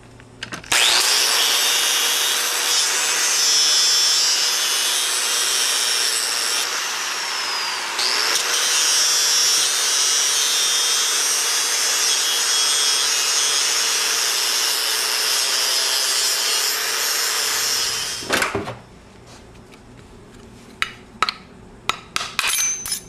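Electric angle grinder with a thin cut-off wheel cutting through a steel hold-down tab on a T5 shifter's front cover, for about seventeen seconds. Its pitch dips briefly about eight seconds in, then recovers. Once it stops there is a run of sharp taps and knocks, with a ball-peen hammer at work on the shifter.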